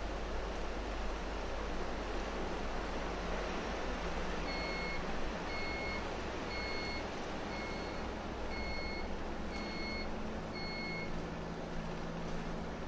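Bus running, heard from inside the cabin: a steady rumble of engine and road noise whose deepest part eases a few seconds in. From about a third of the way in, a high electronic beep sounds seven times, about once a second.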